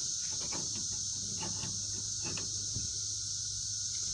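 Faint light clicks and taps of a metal lift-kit bracket being handled and worked into place on the UTV's frame, over a steady high-pitched background drone.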